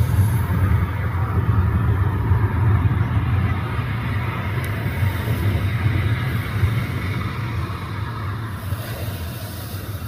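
Jet airliner engines making a loud, deep rumble that slowly fades over the last few seconds as the aircraft moves away.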